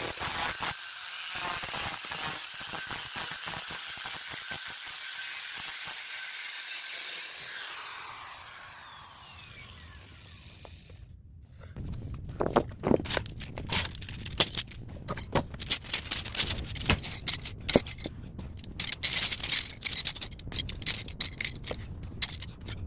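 A high-speed power tool running with a steady high hiss, then winding down with a falling whine. After a short break come irregular sharp metallic clinks, knocks and scrapes: air-conditioner radiator scrap, copper tubing and fins, being worked by hand.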